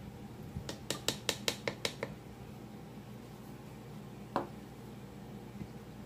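A ladle clinking against cookware: a quick run of about eight light taps in a little over a second, then one more tap about four seconds in.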